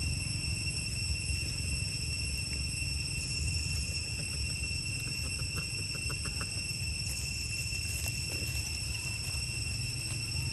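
Steady, high-pitched drone of insects, with a second fainter hissing call coming and going about every four seconds and a low rumble underneath. A few faint short clicks about halfway through.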